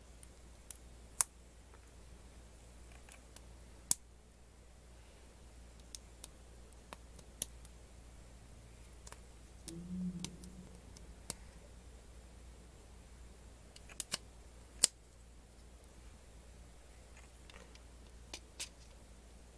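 LEGO Technic plastic parts being handled and pressed together: irregular sharp clicks as pins and connectors snap into place, with a brief low rub near the middle.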